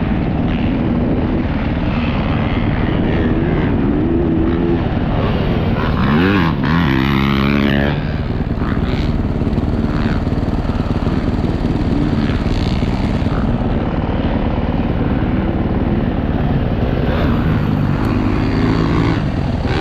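Yamaha YZ450F motocross bike's single-cylinder four-stroke engine running, with the revs rising and falling several times, most markedly around six to eight seconds in.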